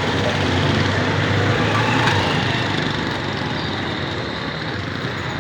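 Street traffic, with a small engine running close by, loudest about two seconds in and then easing off.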